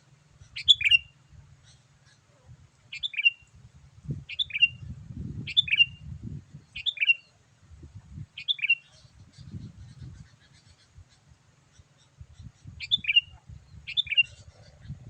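Sooty-headed bulbul (kutilang) calling: eight short, bright two-note chirps spaced a second or two apart, with a pause midway. A low rumbling noise runs underneath.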